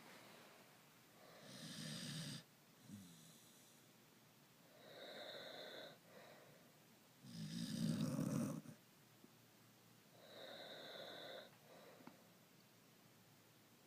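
A corgi and a person snoring in turn, four snores in all. Two are deeper and louder, the second of them the loudest. Between them come two quieter snores with a high whistling tone.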